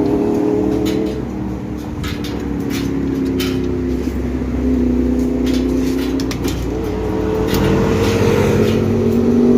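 An engine running steadily, its pitch drifting slightly up and down, with scattered light clicks and taps over it.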